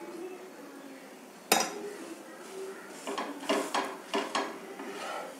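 Steel spatula clinking and scraping against a tawa as a gram-flour omelette is pressed and shifted: one sharp clink about a second and a half in, then a quick run of short clinks and scrapes near the end.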